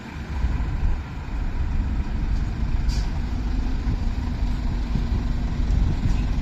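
Scania articulated lorry hauling a container trailer driving past close by, its diesel engine rumbling low and loud. The rumble swells within the first half second as the lorry comes alongside, then holds steady.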